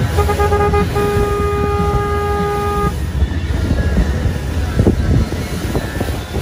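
A boat horn sounds two blasts, a short one and then a longer one of about two seconds, over steady wind and water rumble from a moving boat.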